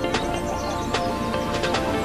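Background music: sustained notes over a regular percussion beat.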